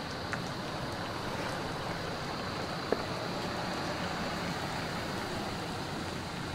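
Steady outdoor background noise with no clear single source, broken by one brief click about three seconds in.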